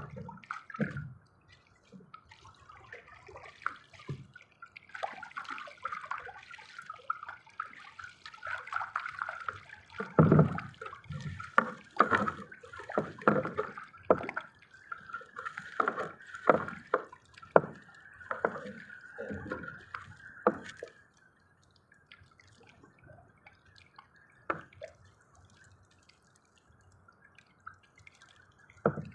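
Water splashing and dripping in irregular sharp splashes, busiest from about five seconds in until about twenty seconds in, then only the odd drip.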